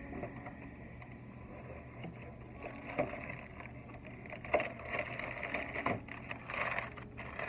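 Thin paper snack bag crinkling and rustling as it is handled and opened, with sharp crackles of paper, busiest in the second half. A steady low hum runs underneath.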